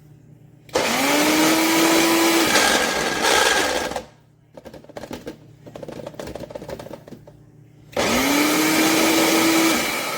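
Blender motor run in two short bursts, each spinning up with a rising whine and then running steady before cutting off. The second burst starts a few seconds after the first. Between them come quieter scattered clicks and crackles.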